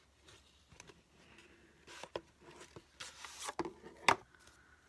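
Small cardboard box and paper packaging being handled: soft rustling and crinkling, a longer rustle about three seconds in, then a single sharp click just after four seconds, the loudest sound.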